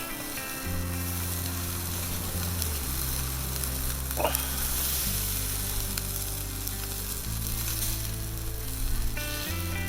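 Chicken-skin skewers sizzling steadily over a charcoal fire, under background music of slow, sustained chords.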